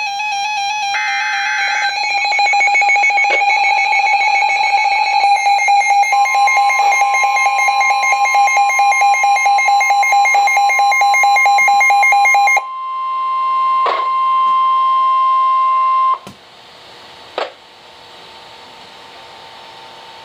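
Emergency Alert System broadcast alert: a short screech of digital data tones, then a loud layered electronic alarm of several steady tones with a rapid warble. About six seconds in, a single steady tone near 1 kHz joins, typical of the NOAA Weather Radio 1050 Hz warning alarm. The warble stops about 12 seconds in, and the single tone cuts off sharply around 16 seconds, leaving radio static with a few clicks.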